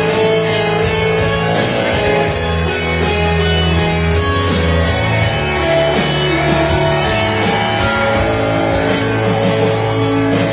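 Instrumental break in a full-band worship song, led by guitar over steady bass and sustained chords, with no singing.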